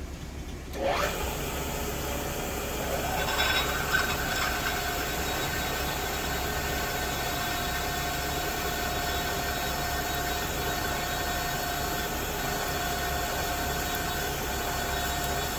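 A machine-tool spindle motor spins up with a rising whine about a second in, then runs steadily with a steady hum and whine, a little louder for a moment around three to four seconds in.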